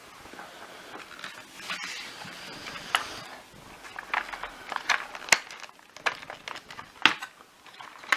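Plastic parts of a vacuum cleaner floor head being handled during disassembly: a rustling first, then a series of sharp clicks and knocks.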